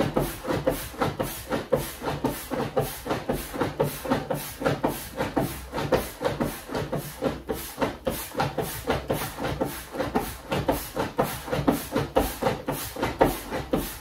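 Foot pump worked in a steady rhythm, about two strokes a second, each stroke pushing a puff of air through the hose into an inflating space hopper.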